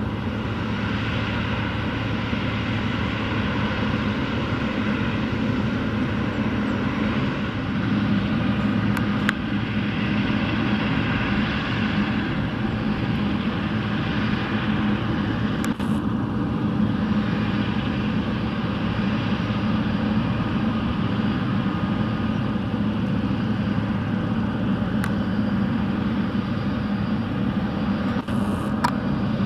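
Boeing 777 freighter's GE90 turbofan engines running steadily, a constant jet rumble with a low hum, heard from outside the aircraft.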